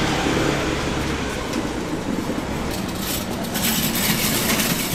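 Street background noise with a low motor hum, like a vehicle engine running, that fades out about a second and a half in, leaving a steady noisy hiss.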